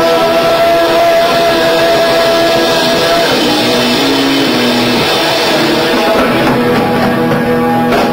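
Live rock trio of electric guitar, bass and drums playing loudly, with a long held high note sustaining for the first three seconds before the band moves on to other held notes.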